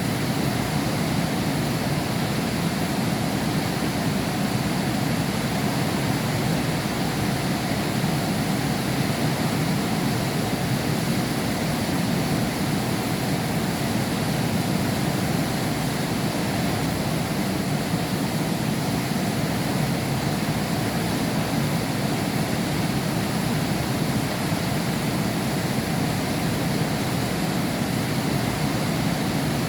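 Heavy rain falling: a steady, even hiss with no thunder or other events.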